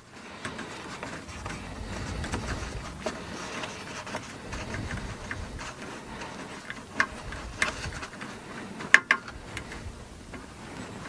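Small hex driver bit working a set screw on a 3D printer's aluminium frame: low handling rumble with a few light metallic clicks, the sharpest about nine seconds in.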